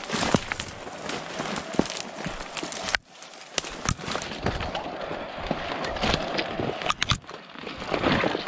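Footsteps crunching through dry leaves and brush, with many irregular crackles and snaps, and a brief break about three seconds in.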